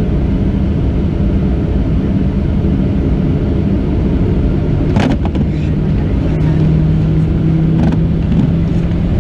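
Steady cabin rumble of a Boeing 737-700 with its CFM56-7 engines running, with a low steady hum, and two sharp clicks about five and eight seconds in.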